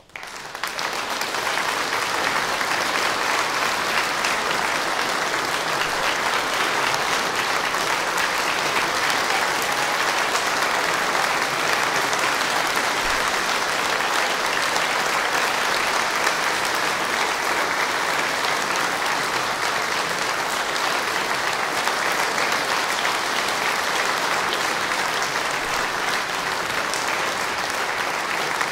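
Audience applauding, breaking out within the first second after silence and then holding steady.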